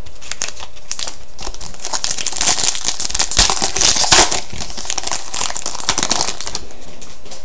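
A hockey card pack's wrapper being torn open and crinkled: a run of crackling rustles lasting about six seconds, loudest in the middle, dying away about a second before the end.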